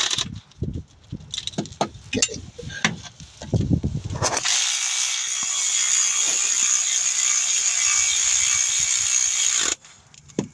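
Metal clinks and knocks of tools and bolts for a few seconds, then a cordless electric ratchet runs steadily for about five seconds, driving down an AC compressor mounting bolt, and stops abruptly.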